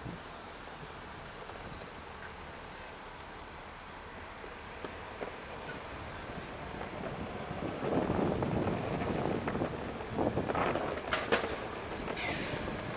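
Downtown street traffic noise: a steady hum of buses, trucks and cars, swelling louder a couple of times in the second half.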